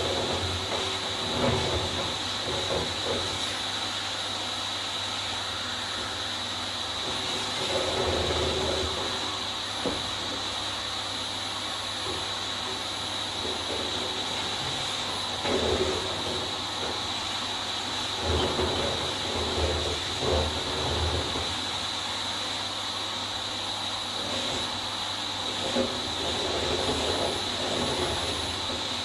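Vax Air Steerable Max upright vacuum cleaner running steadily with a high whine over a hiss, as it is worked down a flight of stairs. Irregular bumps and knocks are heard as it is moved from step to step.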